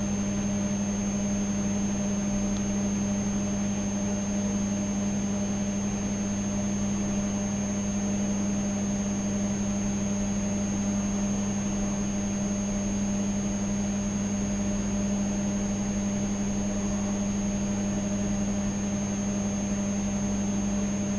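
Steady electrical mains hum from the recording chain, with a thin high-pitched whine over it, unchanging throughout.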